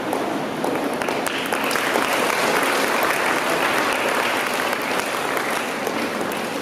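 Audience applauding. The clapping swells about a second in and dies down near the end.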